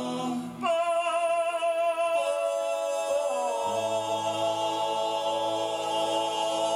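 Six-man male a cappella group holding a long final chord of a sea shanty, with a short break about half a second in and a low bass note joining about three and a half seconds in.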